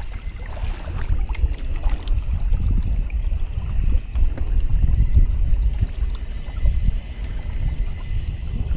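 Wind buffeting the microphone in a gusting low rumble, with faint water noise along the hull of a sailing kayak.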